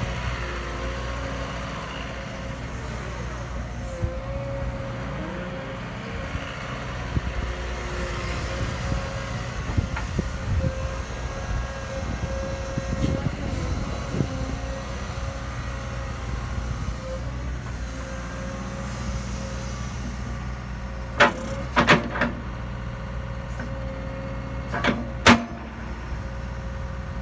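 Caterpillar 314 excavator's diesel engine running steadily with a thin whine over it. A few sharp metallic clanks come near the end.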